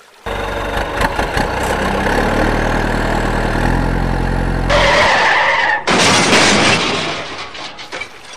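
A truck engine running with a steady low drone that starts suddenly, then a harsh skidding screech about five seconds in, followed by a rushing noise that fades toward the end.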